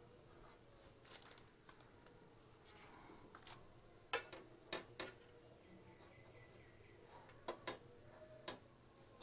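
Table knife spreading butter on bread slices on a metal plate: soft scraping, with about eight sharp clicks of the blade on the plate, the loudest about four seconds in.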